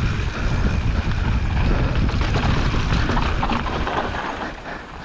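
Santa Cruz Hightower mountain bike ridden down a dirt trail: wind rumbling on the microphone over tyre noise and a steady patter of rattles from the bike. The rumble eases a little near the end.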